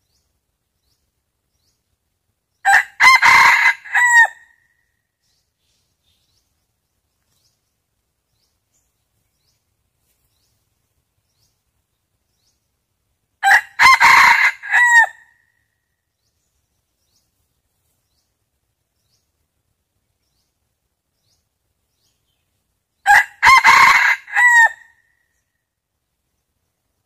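Decoy rooster crowing three times, about ten seconds apart. Each crow is short and broken into a few segments, ending on a brief rising-and-falling note. This is the challenge crow used to call in wild junglefowl.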